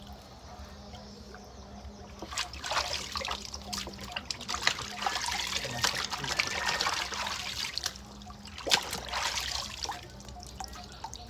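Wet crackling and trickling of hands plucking a scalded chicken, pulling its soaked feathers and working it in water. The sounds come in a long busy stretch from about two seconds in, then a shorter burst near the end.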